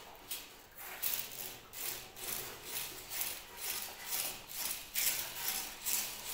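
Rhythmic rubbing or scraping strokes, about two a second, slightly uneven.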